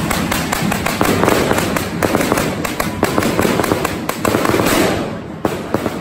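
Correfoc fireworks spraying sparks from a fire-dragon figure: a continuous hiss with rapid sharp cracks and pops, several a second. The hiss thins out about five seconds in, leaving a few scattered cracks.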